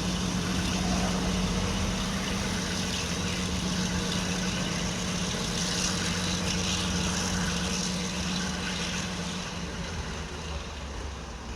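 Diesel locomotive engine running steadily with a deep, even hum, easing off slightly near the end.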